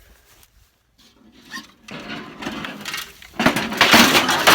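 Rapid rattling and clattering of the blast-damaged sheet-metal grill being handled. It starts quietly, builds about two seconds in, and is loudest near the end.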